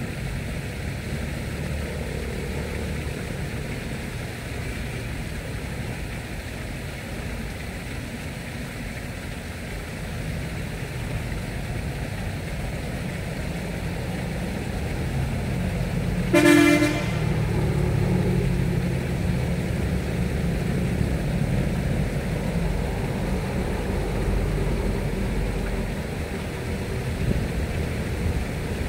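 A single short horn toot a little past halfway, over a steady low rumble.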